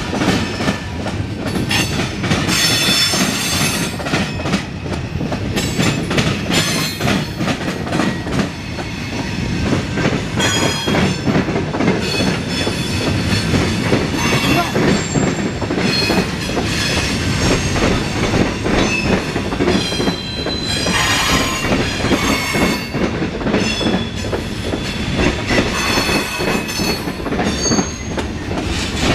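Freight cars of a CSX mixed freight train rolling past, their wheels clicking over the rail joints, with high-pitched steel wheel squeal coming and going as the train takes the curve.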